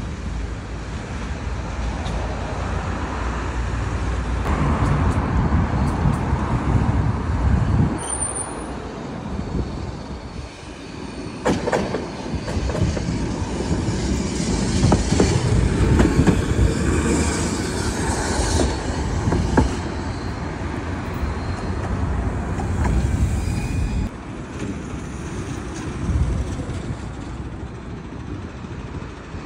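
71-623 (KTM-23) low-floor trams running along street track: a steady rumble of wheels on rail and motor noise that swells as they pass. A brief high wheel squeal comes about eight seconds in, and a quick run of sharp clicks a few seconds later.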